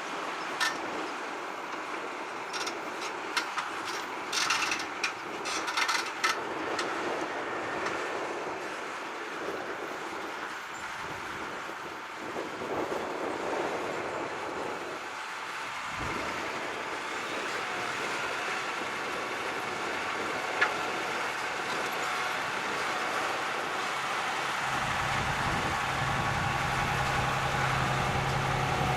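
John Deere 7280R tractor working with an eight-furrow Kverneland plough: a steady mechanical hum with scattered sharp clicks and knocks in the first few seconds. The sound slowly grows louder, and a low engine drone comes in about three quarters of the way through.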